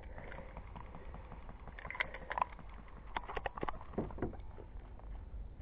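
Scattered clicks, knocks and rustles of an airsoft sniper rifle and gear being handled as the shooter shifts position and brings the rifle up, mostly in the middle seconds, over a steady low rumble on the microphone.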